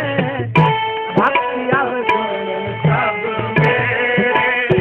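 Sikh kirtan accompaniment between sung lines: tabla strokes, with the bass drum's pitch bending, over harmonium holding steady chords.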